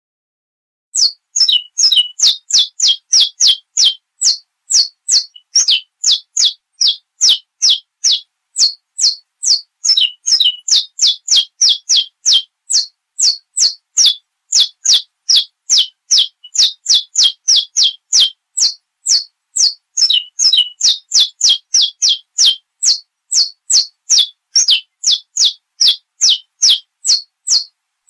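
Saffron finch (canário-da-terra) singing a long run of sharp, quickly falling high notes, about two to three a second, starting about a second in.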